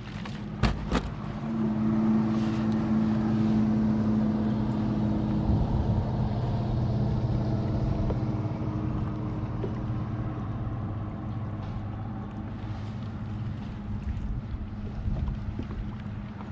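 Sea-Doo FishPro personal watercraft's engine running at low speed, a steady hum that comes in about a second and a half in and holds, easing slightly, after a few sharp clicks.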